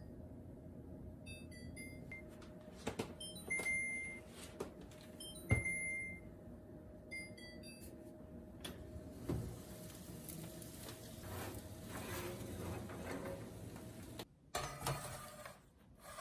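Range's electronic control panel beeping as its keys are pressed: several short high beeps and two longer tones, with a knock near the middle and a faint steady hum underneath. Scattered knocks and rustles follow in the second half.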